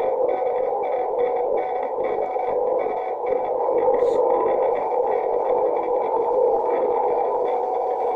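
Shortwave amateur radio receiver on the CW band: steady band-noise hiss and static through a narrow receive filter, with faint on-off Morse code keying in the noise.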